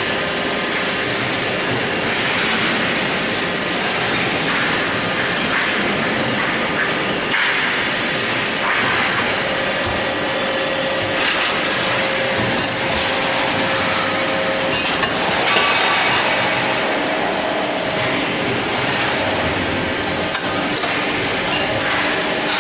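CNC angle-steel punching line running: a continuous mechanical din with steady hum and hiss and a few sharp knocks from the punching strokes.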